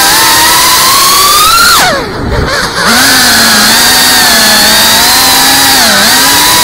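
FPV quadcopter's brushless motors and propellers whining in flight, the pitch rising and falling with the throttle. About two seconds in the pitch climbs, then drops sharply and the sound dips for under a second before climbing back to a steady whine.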